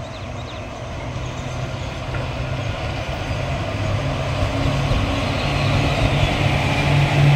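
Electric locomotive (WAP-4 class) hauling a passenger train past, a steady low hum from the locomotive with the rush of wheels on rails, growing louder as it approaches.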